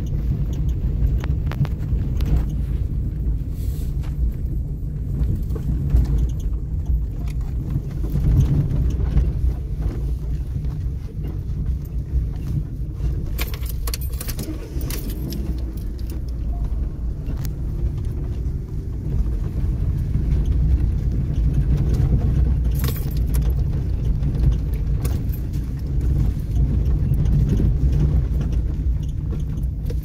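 Car driving over a rough dirt road, heard inside the cabin: a steady low rumble from the engine and tyres, with frequent light rattles and jangles as the car jolts over the bumps.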